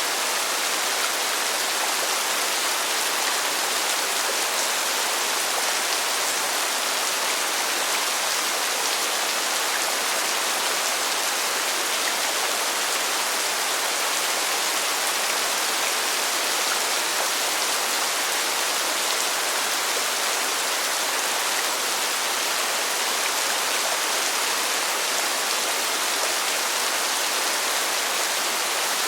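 Heavy rain pouring down in a steady, dense hiss, with no distinct drops or gusts standing out.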